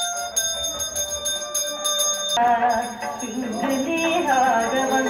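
Temple pooja hand bell rung rapidly and continuously, stopping about two and a half seconds in, over traditional devotional music. The music carries a wavering melody through the rest.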